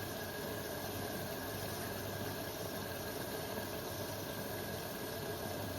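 Front-loading washing machine filling with water through its inlet valve: a steady rush of water with a constant low hum.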